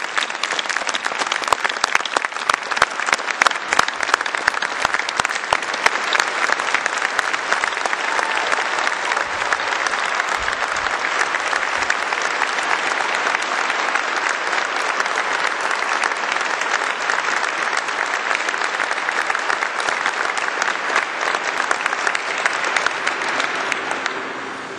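Large audience applauding, a long run of dense, steady clapping that dies away near the end.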